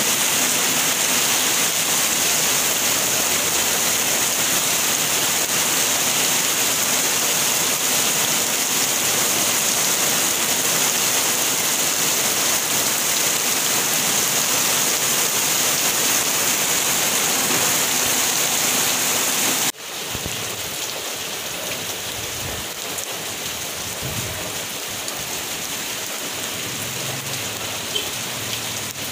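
Heavy rain pouring down in a steady, loud hiss. About twenty seconds in it cuts abruptly to a quieter, lighter rain.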